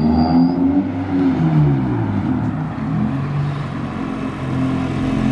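Honda Integra's freshly swapped B20 four-cylinder engine, its pitch rising and falling as it revs, then holding steady near the end.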